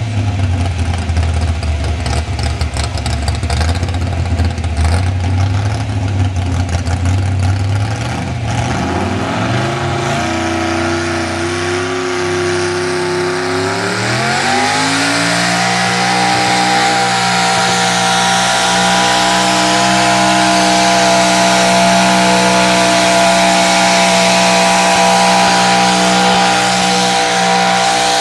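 Pulling pickup truck's engine, hitched to a weight-transfer sled, running with an uneven, choppy rumble. It then revs up in two steps, about nine and fifteen seconds in, and is held at high, steady revs as the truck drags the sled down the track.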